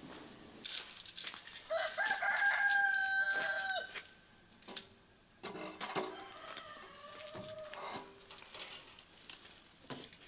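A rooster crowing: one long call held from about two seconds in, dropping at its end, followed by a lower, fainter call a couple of seconds later. A few sharp knocks are heard around them.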